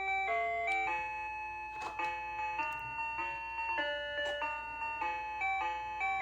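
VTech Little Smart toy laptop playing a beeping electronic tune through its small speaker, one steady tone after another changing pitch every fraction of a second, with a few faint clicks.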